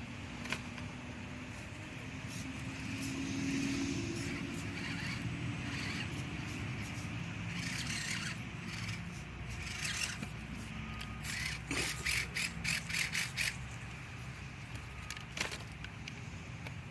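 Electric RC rock crawler, an ECX Barrage, crawling over the course: a steady motor and gear whine, with a cluster of short clicks and scrapes from the tires and chassis on the obstacles about ten seconds in and one sharp click a few seconds later.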